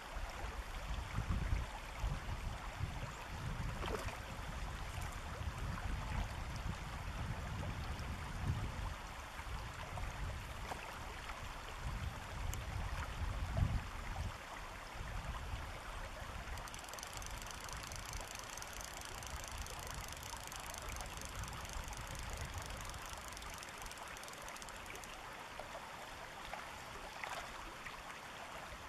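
Shallow river running over a stony bed, a steady rush of water, with low rumbling buffets through the first half. From a little past the middle a faint, fast, high ticking joins in for several seconds.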